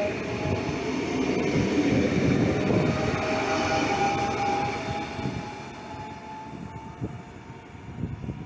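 SNCF Z 24500 (TER 2N NG) double-deck electric multiple unit passing close by: rumble of wheels on rail with a steady electric whine from its traction equipment. The sound fades as the train draws away in the second half, with a few sharp clicks near the end.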